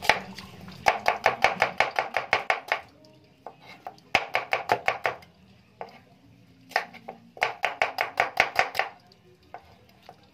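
Kitchen knife slicing red onions against a cutting board: quick runs of sharp knocks, about six a second, broken by short pauses.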